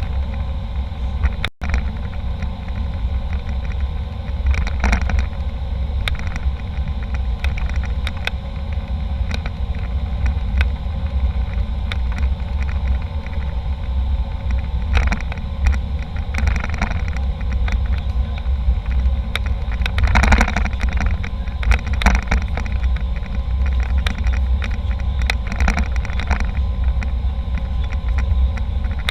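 Airliner cabin noise: a steady low rumble with frequent small knocks and rattles. The sound cuts out for an instant about a second and a half in.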